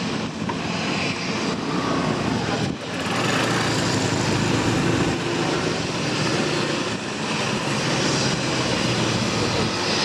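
Steady engine drone mixed with wind and rushing-water noise, with no clear start or stop.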